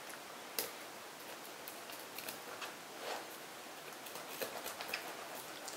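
Kitchen knife scraping along the side of a whole torpedo scad on a plastic cutting board: a series of short, faint scraping strokes as the fish is scaled.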